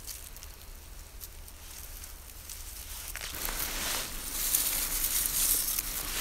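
Faint rustles at first, then, from about halfway, close crackling and rustling of conifer boughs and twigs being handled with a gloved hand.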